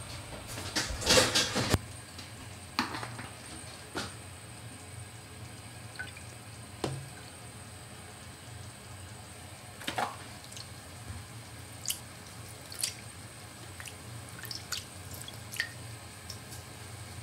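Liquid seasonings dripping from a spoon into a stainless steel mixing bowl, with scattered light clicks of the spoon against the steel and a short louder splashy rush about a second in.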